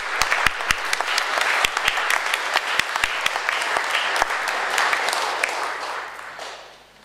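Audience applauding with dense hand-clapping that fades out near the end.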